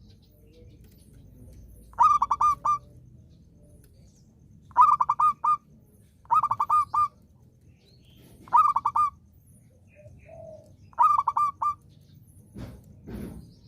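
Zebra dove singing its cooing phrase five times, each a quick run of several rolling notes, repeated every two seconds or so. Two soft low bumps follow near the end.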